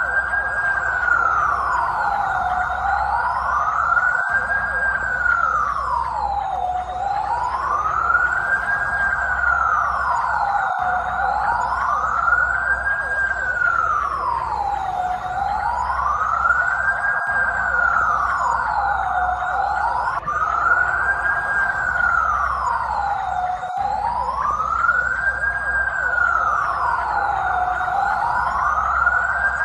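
Police car siren on a slow wail, its pitch rising and falling smoothly about once every four seconds at an even loudness.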